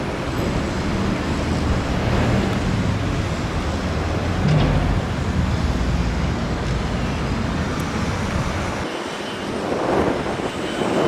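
Street traffic: a steady low rumble of passing vehicles, with a couple of vehicles swelling past near the end.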